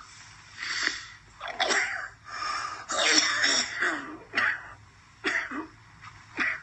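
A man coughing in a fit: a cluster of coughs over the first three seconds, a longer spluttering bout about three seconds in, then single coughs about a second apart.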